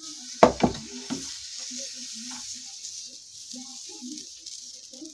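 Dosa batter sizzling on a hot tawa as it is spread in circles with the bottom of a small bowl, a steady hiss. A few sharp knocks near the start, as the bowl meets the pan.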